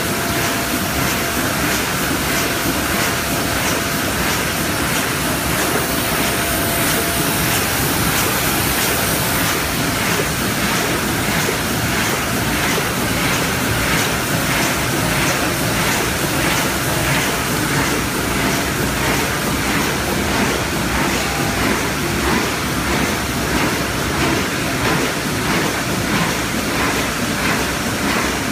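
Automatic die-cutting and creasing machine running in production, its gripper bars and platen cycling with a steady, rhythmic mechanical clatter over a continuous machine noise.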